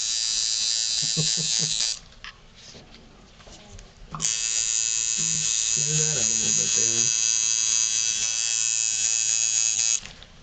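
Tattoo machine buzzing steadily as the needle works into skin. It stops about 2 seconds in, starts again about 2 seconds later, and cuts off just before the end.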